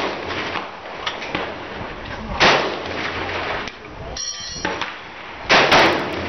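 Two single shots from a Chinese SKS semi-automatic rifle in 7.62×39mm, about three seconds apart, fired slowly and aimed, each with a short trailing tail.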